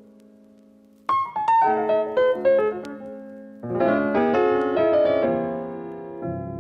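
Background music on piano: a held chord fades, then a quick run of notes starts about a second in, and fuller chords come in from about four seconds in, with a low bass entering near the end.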